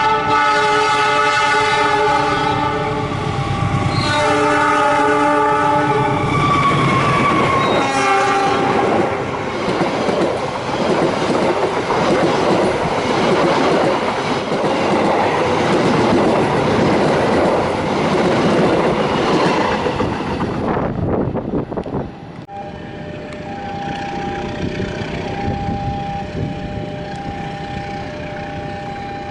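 Diesel locomotive's horn sounding two long blasts, its pitch dropping as it passes, then the rumble and clatter of a long passenger train speeding by. Near the end, after a cut, a level-crossing warning tone repeats at an even beat.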